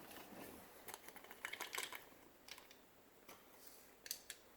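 Faint small clicks and taps of a vacuum's plastic switch housing being handled and pried apart, most of them bunched about a second and a half in.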